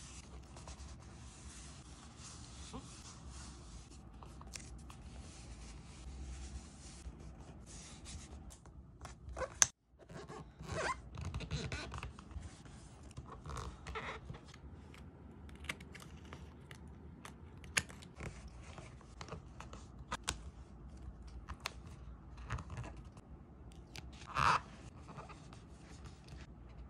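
Close-miked paper handling: photo prints and paper stickers laid onto a journal page and smoothed down with the fingertips. They make soft rubbing and scraping sounds with scattered light taps and clicks, and one sharp click about ten seconds in.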